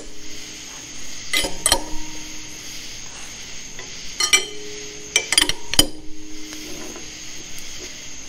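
Steel wrenches clinking and ringing against a harmonic balancer installer tool in three short bursts of knocks, as the installer's nut is worked round to press the balancer onto a Chevy small-block's crankshaft snout. A steady hiss runs underneath.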